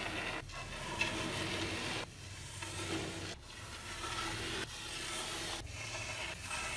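A paintbrush sweeping dry crumbled crust and grit across a wooden tabletop: a scratchy rustle of bristles and debris scraping over the wood, in several separate strokes.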